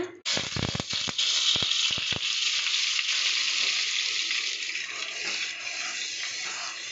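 Butter sizzling as it drops into hot oil in a non-stick wok. The hiss starts sharply, with a few knocks in the first two seconds, then slowly dies down as the butter melts.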